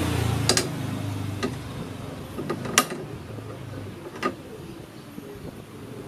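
Metal hand tool clicking and knocking against the scooter's body and the spark plug socket area as it is worked in to remove the spark plug: a few sharp clicks spaced a second or so apart, the loudest about three seconds in. A low steady hum fades out in the first second or so.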